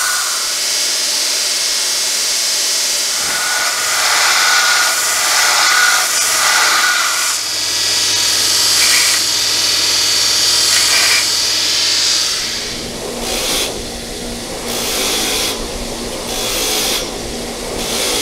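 Electric belt grinder running with a steel part pressed hard against the belt, a loud continuous grinding hiss. About twelve seconds in it changes to a steady motor hum with short repeated surges of grinding as the part is touched to a bench grinder wheel again and again.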